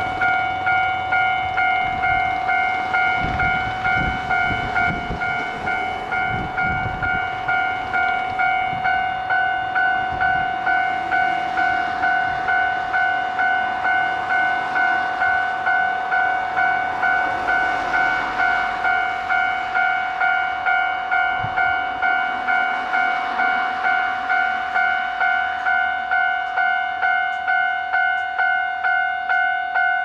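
Japanese level crossing's electronic warning bell ringing steadily at about two dings a second: the crossing is closed for an approaching train.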